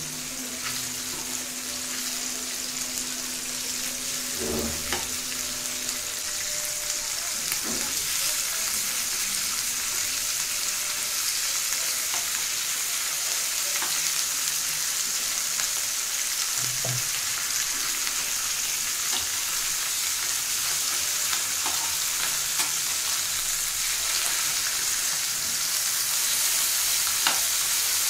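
Small whole spice-coated fish frying in oil in a pan over heat kept a little below medium: a steady high sizzle, with a few sharp taps and scrapes of a metal spatula as the fish are turned over.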